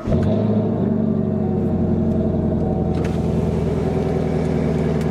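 A Camaro's 6.2-litre LT1 V8, fitted with a C8 Corvette LT2 intake manifold, fires at the start and settles at once into a steady, even idle, heard from inside the cabin.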